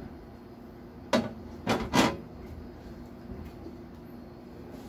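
Containers being set down and shifted inside an open refrigerator: three knocks, one about a second in and two more close together shortly after.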